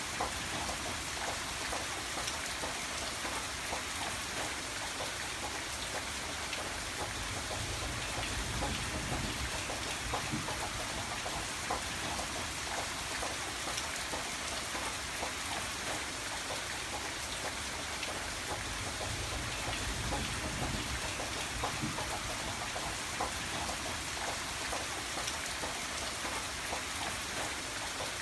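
Steady rain falling, with many separate drop impacts heard within the even hiss. A low rumble swells briefly twice.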